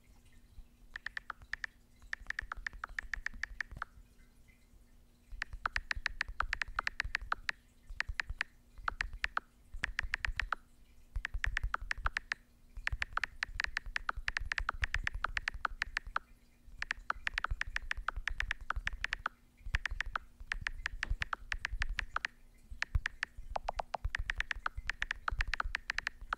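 Thumbs tapping quickly on a smartphone touchscreen while typing, close to the microphone: runs of rapid clicky taps a second or a few seconds long, broken by short pauses.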